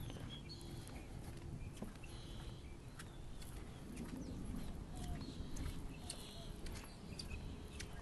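Wind rumbling on the microphone, with scattered short bird calls and chirps and light footsteps on a wooden boardwalk.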